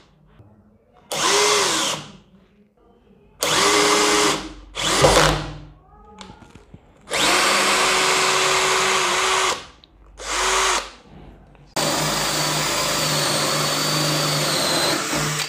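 Bosch GSB 180-LI 18 V cordless drill driving a screw into a block of wood in about six short bursts of the motor, each opening with a quick rising whine. Near the end it runs steadily for about three and a half seconds, boring a hole in the wood.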